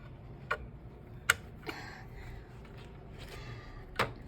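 Plastic wiring-harness plugs and cables being handled, with four short sharp clicks and light rustling; the loudest click comes about a second in.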